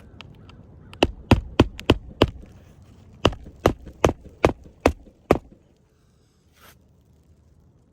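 Hammer blows on a shingle roof during a shingle repair: a run of five quick strikes, a pause of about a second, then six more strikes, slightly slower. A short scrape follows near the end.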